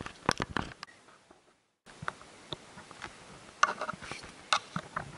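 Irregular small clicks and taps from fishing tackle being handled on a small boat. The sound cuts out completely for about half a second, a second and a half in.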